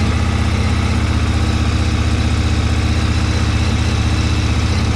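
KTM 1290 Super Duke R's V-twin engine idling steadily, freshly started.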